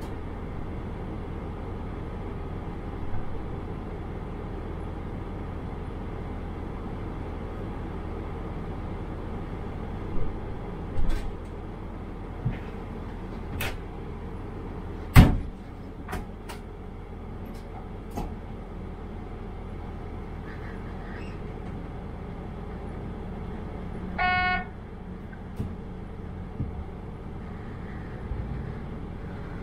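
Diesel multiple unit standing at a station with its engine idling in a steady low hum, with several sharp clicks and knocks around the middle. A short high beep sounds about five seconds before the end, and the train starts to pull away just after.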